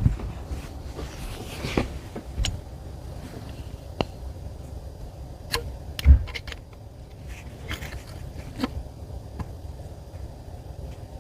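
Scattered light clicks and knocks of metal air-rifle parts being handled while a stubborn threaded part is worked onto an Umarex Zelos PCP rifle, with a duller thump about six seconds in, over a low steady hum.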